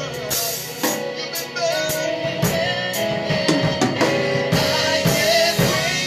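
Gospel worship music with a full band: a drum kit with cymbals keeping a steady beat under held keyboard or guitar chords, with some singing.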